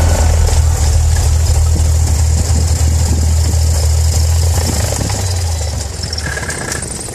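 A single-engine light airplane's piston engine idling, heard inside the cockpit with a steady low drone. It dies away over the last couple of seconds, and a brief beep comes shortly before the end.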